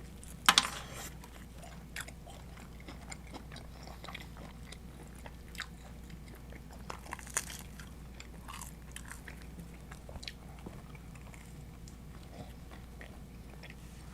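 A person biting into and chewing food close to the microphone: a loud crunchy bite about half a second in, then soft chewing with small wet mouth clicks.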